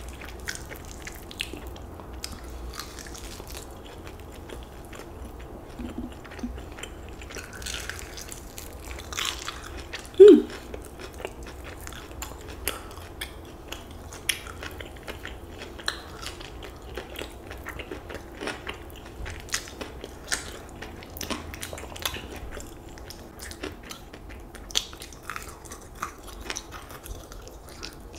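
Close-miked eating of fried chicken wings: chewing and biting with many small wet mouth clicks as meat is pulled off the bone. One brief, much louder sound with a short rising pitch comes about ten seconds in.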